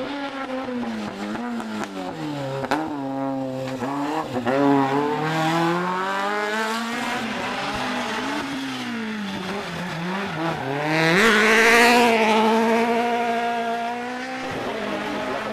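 Rally car engines on a tarmac hairpin: the revs fall as a car brakes into the bend, then climb again in steps as it accelerates out through the gears. The loudest pass comes about eleven seconds in, with tyre squeal over the engine.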